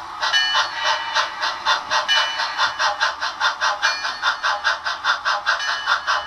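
Digitally sampled steam-locomotive exhaust chuffs from a Soundtraxx Tsunami sound decoder in an On30 Bachmann model steam locomotive. The chuffing is fast and even, about five beats a second, and thin, with little bass.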